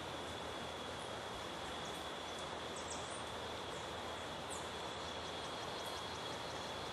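Steady rainforest garden ambience: an even hiss with a constant high-pitched drone, and a few faint, short high chirps in the middle.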